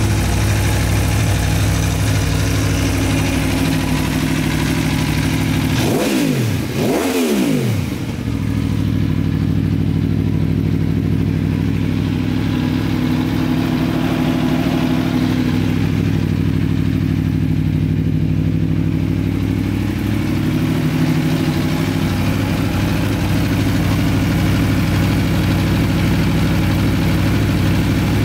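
Aprilia Tuono V4 1100 Factory's V4 engine idling steadily, blipped twice in quick succession about six seconds in, the revs rising and dropping straight back each time, with a gentler rise in revs around twenty seconds in.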